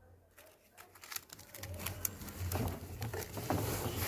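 Laundry being pulled out of a washing machine drum: cloth rustling with scattered light clicks and knocks, getting busier from about a second in.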